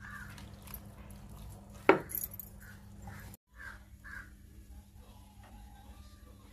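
Crows cawing now and then in the background over a low steady hum, with a single sharp click about two seconds in.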